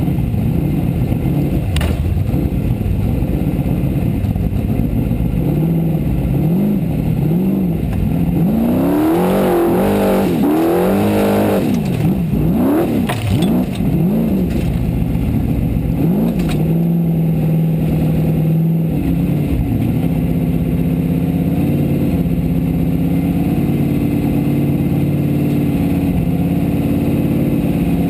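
Formula Offroad race car's engine heard from inside the cockpit, revving up and down rapidly several times in the middle, then running at a steadier, higher pitch, with a few sharp knocks.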